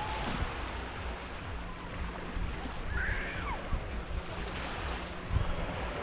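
Small sea waves lapping and washing onto a sandy shore, with wind buffeting the microphone in gusts. A faint high gliding call is heard about halfway through.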